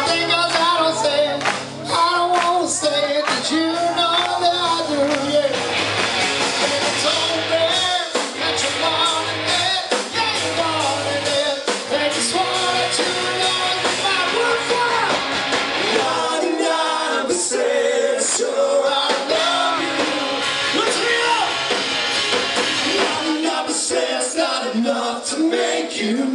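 Rock band playing live, with sung vocals over electric guitars and drums. The bass-heavy low end drops out about two-thirds of the way through while the vocals and guitars carry on.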